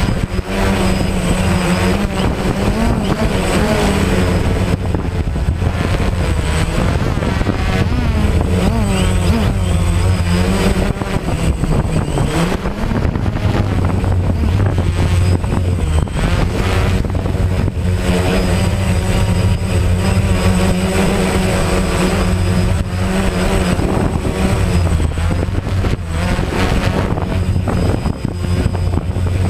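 DJI Phantom quadcopter's electric motors and propellers buzzing continuously, the pitch rising and falling as the motors change speed.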